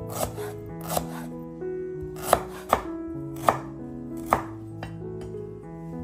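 Chef's knife slicing fresh ginger root on a wooden cutting board: about six sharp knocks of the blade hitting the board at uneven intervals, the loudest in the middle, over soft background music.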